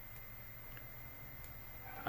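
A few faint computer-mouse clicks, about three spread over two seconds, over a low steady room hum.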